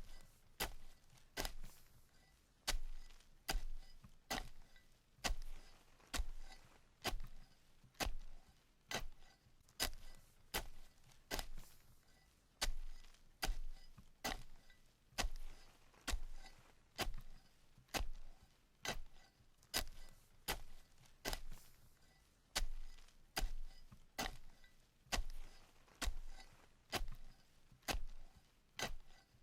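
A metal shovel blade stabbing into dirt over and over, each a sharp scraping strike with a short gritty tail. The strikes come at a steady pace, a little faster than one a second.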